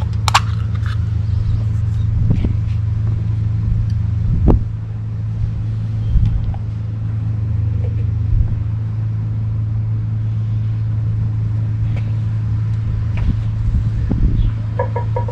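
A steady low mechanical hum, with a few short knocks and clicks over it.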